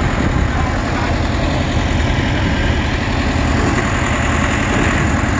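Engine of a yellow tractor-based forklift idling steadily, with an even, rapid low chugging.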